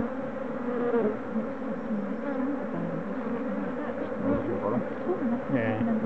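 Many honeybees buzzing around an opened hive: a dense, steady hum in which single bees' tones rise and fall.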